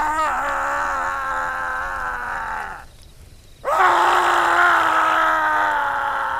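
A man's voice acting out the scream of the swamp buck, a legendary man-eating deer: two long drawn-out screams. The first wavers and slowly falls before breaking off about three seconds in; after a short pause the second starts with a sharp rise and then sinks slowly in pitch.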